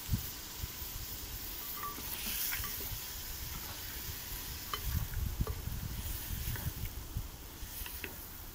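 Meat sizzling as it fries in a cast-iron pot, with a spatula stirring and scraping against the pot, most busily from about five seconds in.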